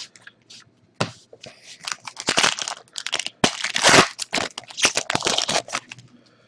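A foil trading-card pack torn open by hand, the wrapper crinkling and ripping in irregular bursts, starting about a second in and loudest around four seconds in.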